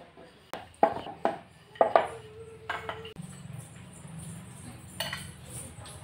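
A quick series of sharp knocks and clinks of kitchen utensils: a wooden rolling pin on a wooden board and a steel spoon against a china bowl. One clink rings briefly, and a single further clink comes about five seconds in.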